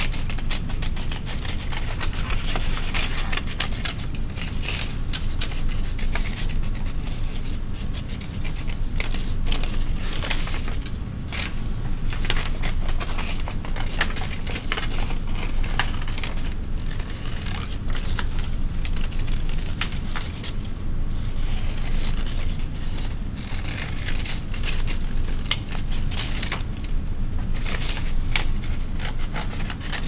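Scissors cutting out paper circles: a run of short snips with the crackle of the stiff sheet being turned and handled, over a steady low hum.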